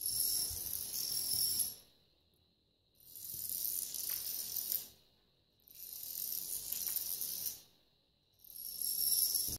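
Plastic toy dominoes toppling in a chain onto a wooden parquet floor, a fast run of clicks. There are four runs of about two seconds each, one line falling after another, with silence between them.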